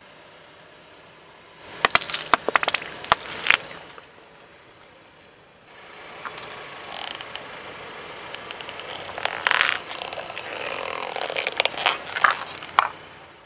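Car tyre rolling slowly over plastic objects on asphalt. First a short cluster of sharp cracks and pops as a row of plastic paint tubes is run over. Then a gritty crunching that grows louder, with cracks and snaps as plastic measuring scoops are crushed under the tyre, loudest near the end.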